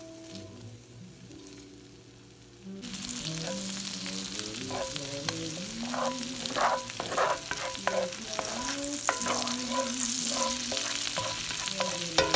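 Butter melting and foaming in a hot cast iron skillet with garlic, sizzling loudly from about three seconds in, while a spatula stirs and scrapes across the pan.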